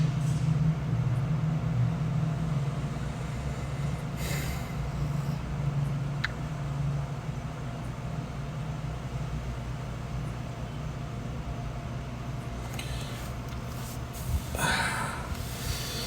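A steady low hum, with a short breath or sniff about four seconds in and a heavier breath or sigh near the end.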